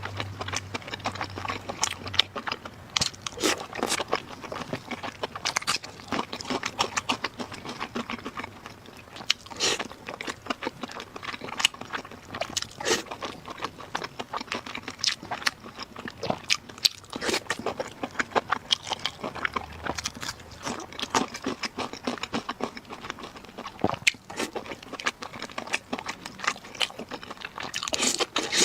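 A person eating close to the microphone: steady chewing and biting, with many short crunching clicks throughout.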